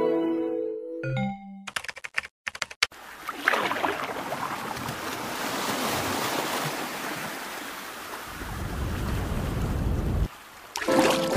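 An electronic music track breaks off about a second in into a quick run of sharp clicks, then a long swelling hiss of noise with a low rumble under it that cuts off suddenly; the melody comes back near the end.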